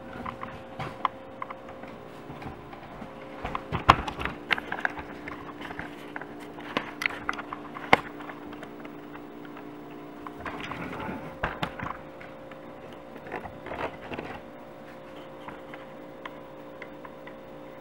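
Scattered light knocks and clicks, the two sharpest about four and eight seconds in, over a steady hum in a small room.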